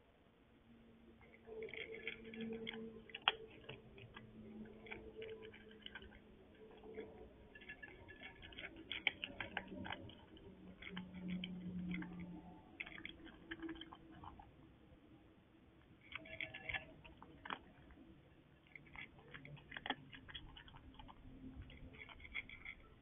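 A cat chewing and crunching food from a bowl, in bouts of quick crisp clicks with short pauses between.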